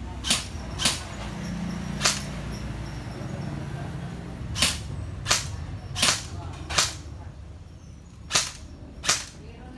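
A series of sharp, short pops, about nine of them at irregular intervals, over a steady low rumble.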